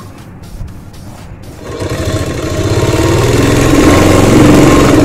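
Domestic sewing machine stitching cotton fabric. It starts running about two seconds in, speeding up and growing louder as the seam is sewn.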